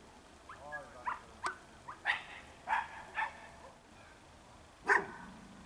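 A dog barking: about seven short barks at irregular spacing, the loudest near the end.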